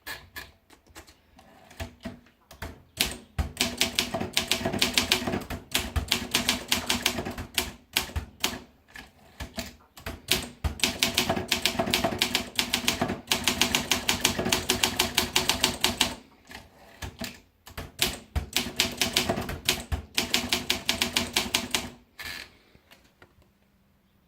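Olympia SM2 manual portable typewriter being typed on: runs of rapid key strikes in three main bursts with short pauses between them, ending about two seconds before the end.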